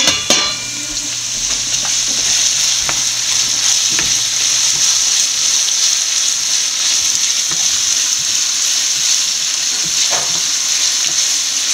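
Sliced onions sizzling in hot oil in a frying pan with a steady frying hiss, stirred now and then with a wooden spatula while they soften. Right at the start, a metal lid clinks with a brief ring onto a stainless steel pot.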